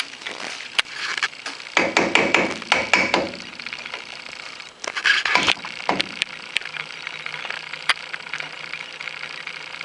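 Hand tools knocking and clattering on metal brake parts: scattered sharp taps, with two longer rough, noisy stretches about two and five seconds in.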